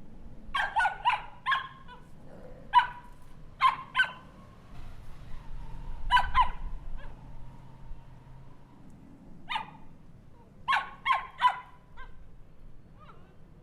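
Small dog barking: short, high-pitched yaps in clusters of one to four, with pauses of a second or two between the clusters.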